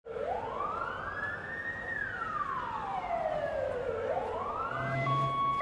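Emergency vehicle siren wailing slowly, gliding up over about two seconds, falling again, then starting another rise. Just before the end a second siren cuts in with steady tones that switch back and forth.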